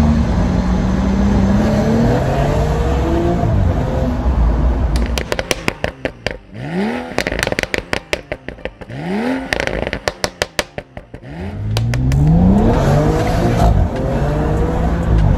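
BMW M135i's turbocharged N55 straight-six pulling hard. For several seconds in the middle it breaks into a rapid string of exhaust pops and crackles on lift-off, with two quick rev blips, then rises hard again near the end. The pops and bangs come from a Stage 2 bootmod3 tune.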